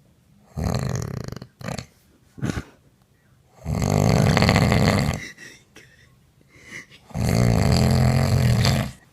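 A woman snoring loudly in her sleep: three long snores a few seconds apart, with a couple of short snorts in between.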